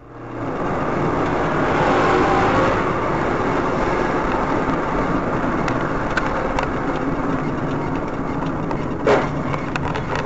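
A car driving along a road, its engine and road noise heard from inside the cabin through a dashcam's microphone. About nine seconds in there is one short, sharp sound.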